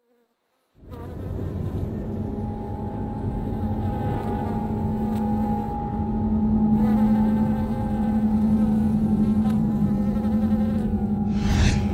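A steady buzzing drone over a low rumble starts about a second in. A brief rushing swell comes near the end.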